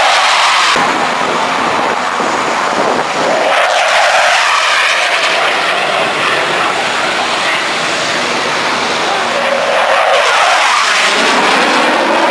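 Military jet fighters making low passes, a loud continuous jet roar whose pitch sweeps up and down in a phasing whoosh as the aircraft go by.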